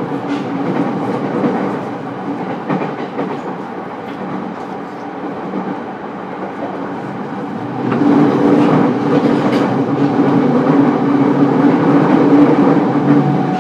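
Running noise of an E231-series electric commuter train heard from inside a motor car: wheels on rail with scattered rail-joint clicks. About eight seconds in it gets louder and a steady hum comes in.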